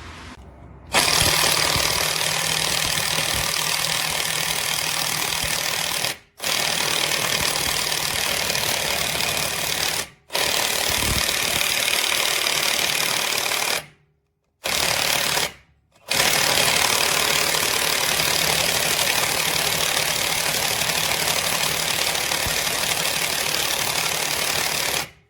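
Impact wrench hammering at full trigger in long runs, with short stops about 6, 10, 14 and 16 seconds in.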